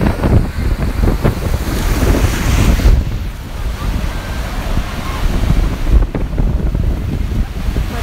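Wind buffeting the microphone of a phone used without an external mic, giving a heavy, uneven rumble, over sea surf breaking and washing up a sandy beach. The rush of the surf swells about two seconds in.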